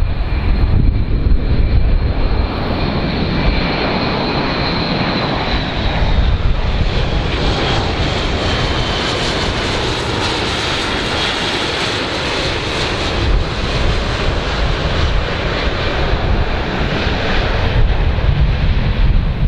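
Airbus A400M Atlas's four TP400 turboprop engines and eight-bladed propellers droning as the aircraft flies low overhead. The roar carries a high whine that drops in pitch about six seconds in as the aircraft passes.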